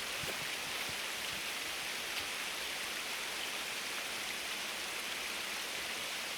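Steady, even hiss of noise with no breaks and no separate sounds in it.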